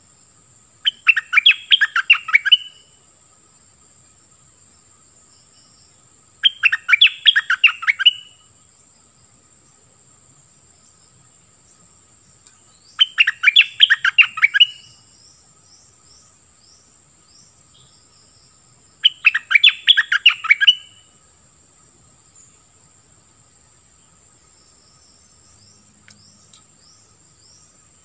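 A caged bulbul sings four bursts of quick, chattering notes, each about two seconds long and spaced a few seconds apart. A steady high insect drone runs underneath.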